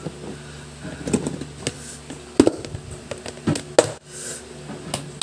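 Plastic food container handled close up: hands pressing and working its lid, with a handful of sharp knocks and taps of plastic, the loudest about two and a half seconds in and again near four seconds.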